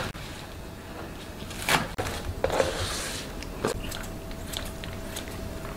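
Sparse, soft kitchen handling sounds: a few separate knocks of a kitchen knife on a plastic cutting board, then light clicks and snips of kitchen scissors cutting soaked dried red chillies, over a faint steady hum.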